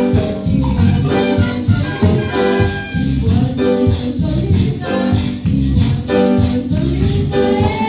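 Christian praise song (alabanza): music with a steady beat and a woman singing.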